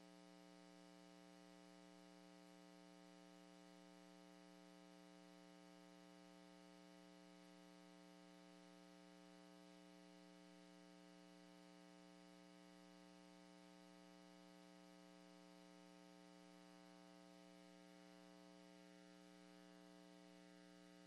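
Near silence, with only a faint, steady hum made of several unchanging tones.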